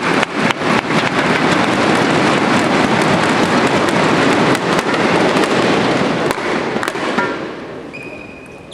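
Crowd in a sports hall cheering and rapidly beating inflatable thunder sticks and clapping after a point is won, a loud dense clatter that dies away about seven seconds in.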